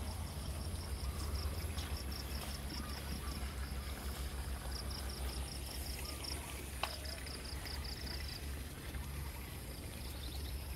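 Outdoor ambience of wind rumbling on the microphone, with an insect chirping fast and regularly, about five pulses a second, in three stretches, over a steady high insect hiss.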